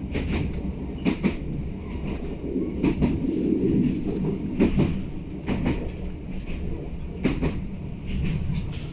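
Regional passenger train running, heard from inside the carriage: a steady low rumble with the wheels clacking over rail joints in quick pairs every second or two.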